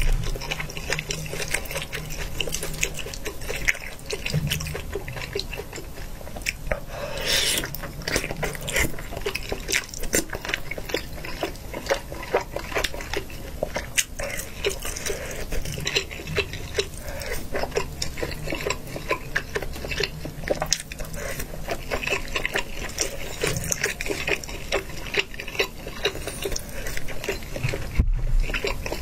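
Close-miked wet chewing and mouth sounds of eating saucy hot-pot food, a steady run of small smacking clicks, with a longer, louder wet sound about seven seconds in.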